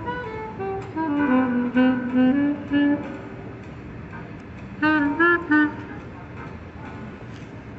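A solo instrument playing a slow melody: a phrase of held notes that dips and climbs back, a pause of about two seconds, then three short notes about five seconds in, over steady outdoor background noise.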